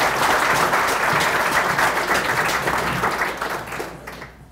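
Audience applauding a steady round of clapping, which dies away near the end.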